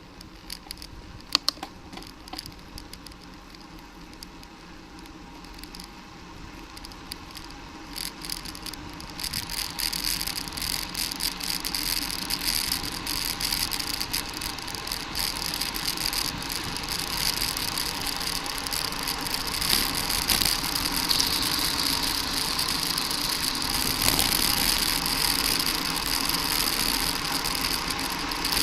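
Bicycle being ridden: a few sharp clicks at first, then steady wind and tyre noise with rattling that grows louder from about nine seconds in.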